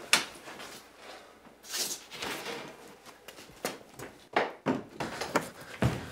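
Irregular knocks, thumps and rustling of someone hurrying through a cluttered basement and moving things about, with a handful of sharper clatters in the second half.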